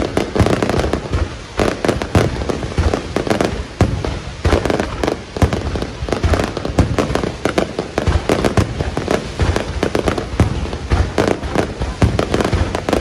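Fireworks going off in a dense, continuous barrage: many sharp bangs a second over a steady crackle, as aerial shells launch and burst.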